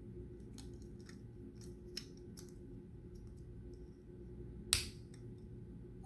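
Plastic LEGO pieces clicking and snapping as they are handled and pressed together, a scattering of light ticks with one louder snap about three-quarters of the way through.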